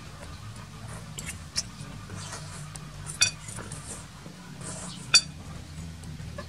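A metal spoon clinking against a ceramic bowl while noodles are eaten: three sharp clinks, the loudest about three seconds in and ringing briefly.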